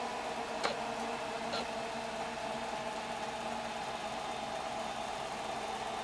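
A steady mechanical hum with a few level tones, and two faint clicks, one about half a second in and one a second later.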